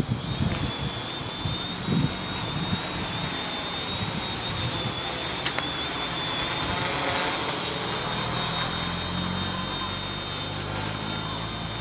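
Gaui 330XS quadcopter's electric motors and propellers flying overhead: a steady high whine that wavers slightly in pitch.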